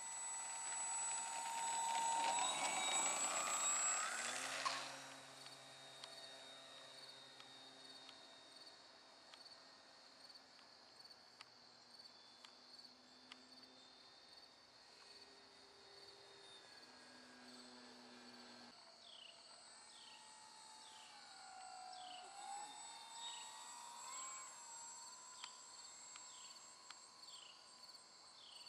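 Hobbico Electristar's electric motor and propeller whining, rising in pitch as it throttles up for the takeoff run, then cutting off suddenly about five seconds in. After that, crickets chirp steadily, with a faint motor drone rising and falling in pitch as a plane flies over.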